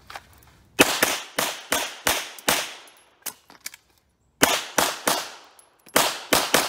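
Handgun fired in rapid strings: about six quick shots, a pause of roughly two seconds with a couple of faint clicks while the shooter reloads, then two more fast groups of shots.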